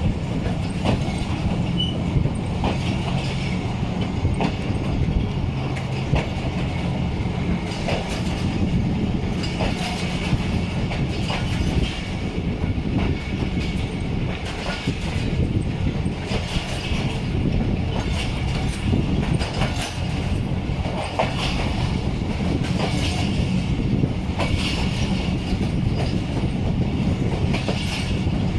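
Passenger train running along the track: a steady rumble with a low hum and the wheels clattering over rail joints.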